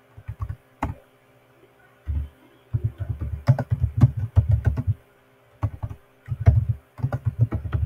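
Typing on a computer keyboard: quick runs of keystrokes in bursts, with short pauses about a second in and around five seconds in.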